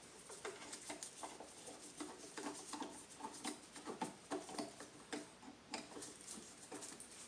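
Screwdriver loosening a fastener on the air intake duct: a run of faint, irregular light clicks, several a second.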